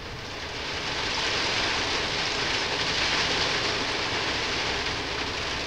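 Steady hiss of rain on the van's roof, building a little over the first second and then holding even.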